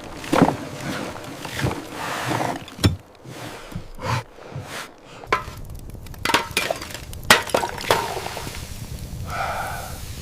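Irregular sharp knocks and cracks, a dozen or so spread unevenly, with a brief pitched sound near the end.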